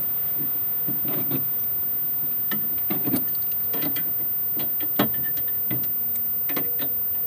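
Wrenches clicking and clinking on a steel popper target's bolt and base as the bolt is tightened: scattered light metal clicks, with one sharper knock about five seconds in.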